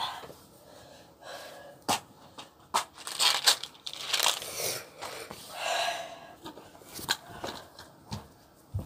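A series of short, noisy mouth and breathing sounds from someone eating spicy instant cup noodles, with several sharp clicks in between.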